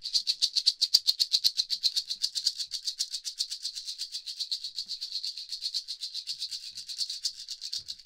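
Maraca shaken in a fast, even rhythm, about eight shakes a second, picked up by the ear microphones of a MiniDSP EARS headphone measurement rig as the maraca is carried around it.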